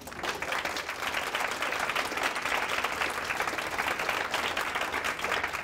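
Audience applauding: many people clapping together in a dense, steady patter that builds quickly.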